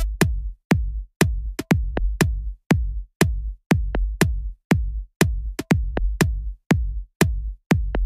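Electronic background music: a drum-machine kick drum on every beat, about two a second, each hit sweeping down in pitch, over a deep bass.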